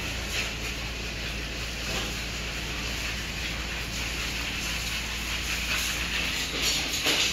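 Steady hiss over a constant low hum, with a few short, sharper sounds near the end.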